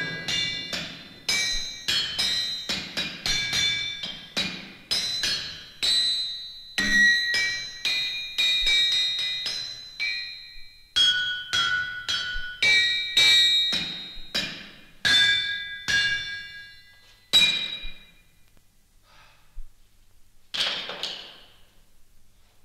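Hammers striking metal anvils in an uneven rhythm of about one to two blows a second, each blow ringing on with a bright, clear pitch that changes from strike to strike. The blows thin out near the end, with a few faint ones and a last ringing strike before it stops.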